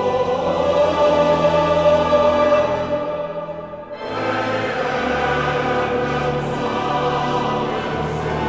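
Background music: a male voice choir singing with piano and organ. The music fades out about three seconds in and a new passage starts about a second later.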